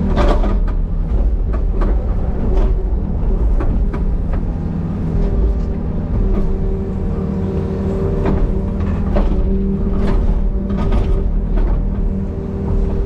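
Small excavator's diesel engine running under load with a steady whine over it, while it pushes over a large tree, with irregular sharp knocks and cracks throughout.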